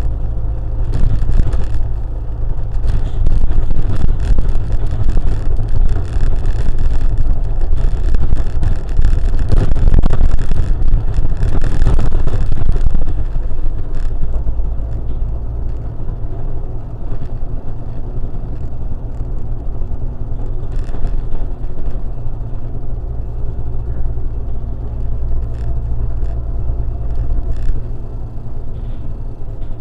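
A moving road vehicle's engine and tyre noise: a loud, steady low rumble that eases somewhat about 13 seconds in.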